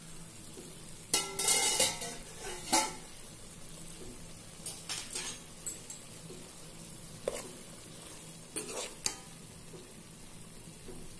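Steel spoon scraping and clinking against a metal pot while stirring and scooping boiled rice to check whether it is cooked, in several separate strokes.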